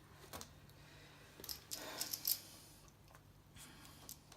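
Small clicks and scraping of a laptop LCD panel and its plastic screen parts being handled and pressed into place, a cluster of clicks about one and a half to two and a half seconds in, the loudest near the end of that cluster.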